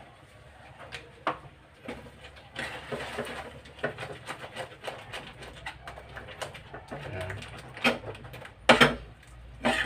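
A spatula stirring and scraping a thick cheese sauce in a nonstick frying pan: a run of soft clicks and scrapes, with three sharper knocks near the end.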